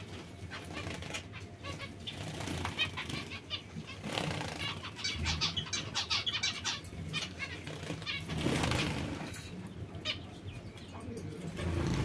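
Small aviary finches fluttering their wings, with bursts of flapping through the middle and about two-thirds of the way in, among short high chirps.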